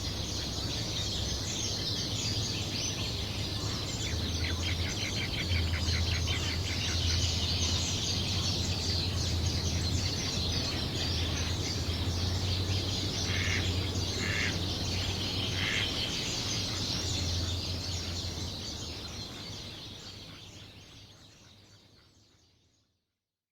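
Dawn chorus of many birds chirping and singing at a pond, with a few louder short calls about two-thirds of the way through and a steady low hum underneath. The whole ambience fades out to silence near the end.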